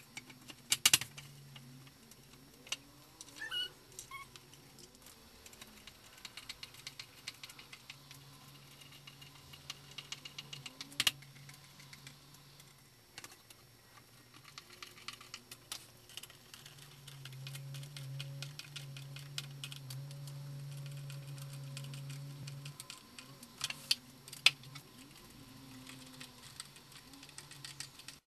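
Scattered clicks, taps and knocks of flat-pack shelf parts and screws being handled and fitted together, a few of them sharp and loud. A low steady hum comes and goes underneath.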